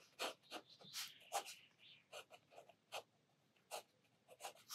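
Sakura Pigma Micron fineliner pen drawing short strokes on watercolour paper: faint, quick, irregular scratches of the nib.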